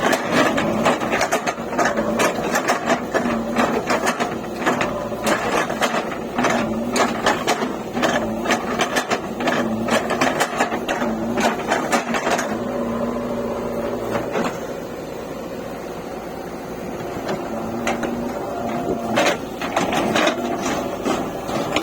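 Diesel engine of a JCB 3DX backhoe loader running under work, with many rapid metallic clanks and rattles; the clanking eases off for a few seconds past the middle and then returns.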